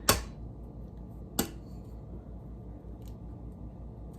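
An egg knocked sharply against the rim of a mixing bowl to crack it: one knock right at the start and another about a second and a half in.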